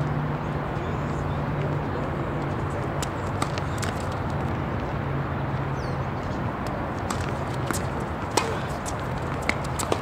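Steady murmur of voices with scattered sharp knocks at irregular intervals.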